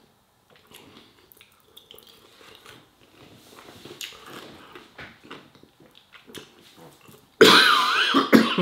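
Faint chewing, then about seven seconds in a sudden loud coughing fit into the fist, lasting about a second. It is a choking cough from something catching in the throat, which the eater thinks was more likely food going the wrong way than chilli at the back of the throat.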